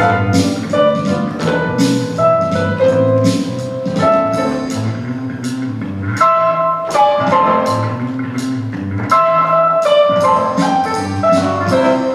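Instrumental stage music: a plucked-string melody over a steady beat of about two strokes a second, cutting off suddenly at the end.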